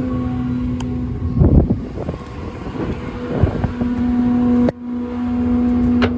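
Diesel truck engine running with a steady droning hum, with short rattling clatters about one and a half and three and a half seconds in and a brief abrupt break near the end.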